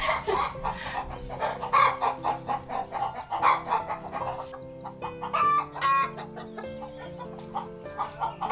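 Chickens clucking in repeated short calls, with a louder pair of calls about five and a half seconds in, over soft background music.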